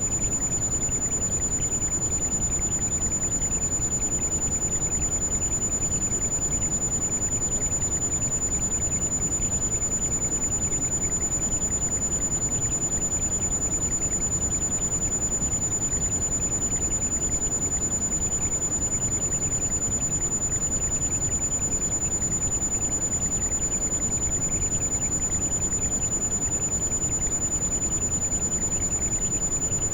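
Steady heavy rain, an even, unbroken rush strongest in the low end. A single thin, high-pitched tone rings constantly through it: a tinnitus-like ringing mixed in with the rain.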